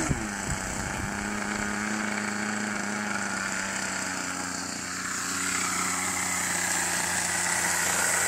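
Small model airplane engine idling on the ground. Its pitch drops sharply right at the start as it is throttled back from a rev, then it holds a steady idle.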